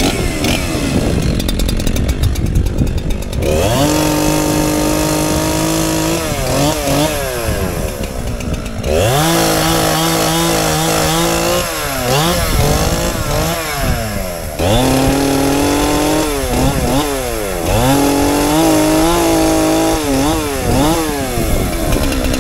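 Gas chainsaw running, revved to full throttle four times for a few seconds each and dropping back between runs, as it cuts into a wooden post.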